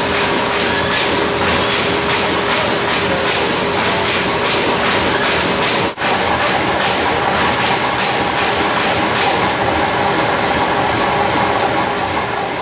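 Norpak HSi servo-driven high-speed envelope inserter running at production speed: a rapid, even mechanical clatter over a steady hum, breaking off for an instant about six seconds in.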